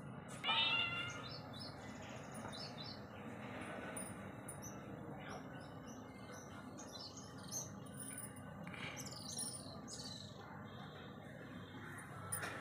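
Small birds chirping on and off, short high calls throughout, with one louder call about half a second in, over a steady low background hum.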